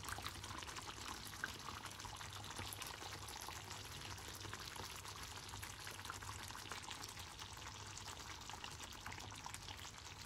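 Chicken karahi curry sizzling in its oil on high heat: a faint, steady frying hiss with many small spits and crackles.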